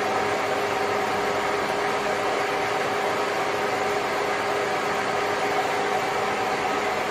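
Steady machine hum with a few even tones, holding constant.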